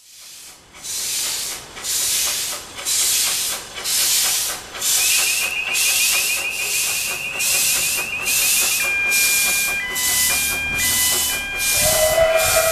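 Narrow-gauge steam locomotive Excelsior hauling its train, its exhaust chuffing in hissing beats that quicken from about one to about two a second. A blast on its steam whistle starts near the end.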